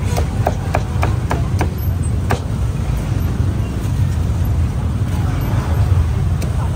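Cleaver chopping meat: a run of sharp, quick chops, about three a second, for the first two and a half seconds, then a pause and one more chop near the end. Under it runs a steady low rumble of street traffic.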